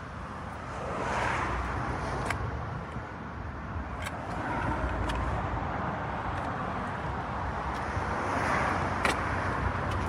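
Road traffic rumbling past, swelling twice as vehicles go by, with a few short sharp clicks.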